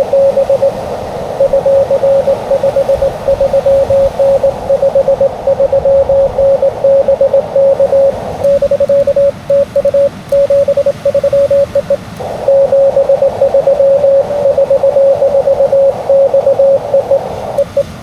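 Morse code (CW) from an amateur radio transceiver: a single steady tone, keyed on and off in rapid dots and dashes, over receiver hiss. The hiss thins for a few seconds in the middle, then returns.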